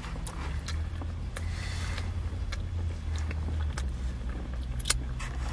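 Steady low rumble inside a car cabin, with a few short sharp clicks and taps from eating and handling a plastic takeaway tub.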